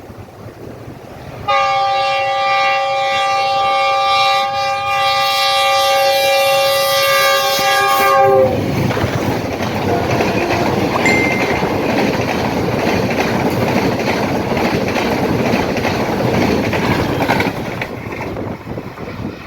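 Pakistan Railways Green Line express passing at speed. The locomotive's multi-tone horn sounds as one long chord for about seven seconds, dropping in pitch as it ends. Then the coaches' wheels rush and clatter over the rails for about nine seconds, easing near the end as the train goes by.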